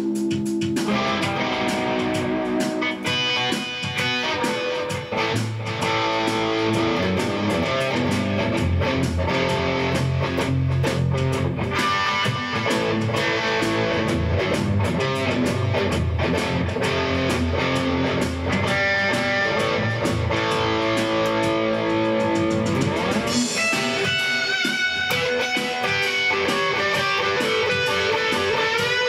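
Instrumental rock-and-roll: electric guitar playing over a steady drum beat and bass line. About three quarters of the way through, a guitar note slides upward in pitch.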